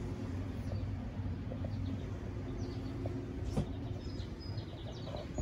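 A steady low mechanical hum with a few faint, short bird chirps from about halfway through, and a single click.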